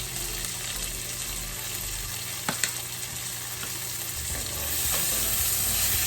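Halved grape tomatoes sizzling in butter and olive oil in a frying pan, with two sharp clicks about two and a half seconds in. The sizzle grows louder in the last second or so.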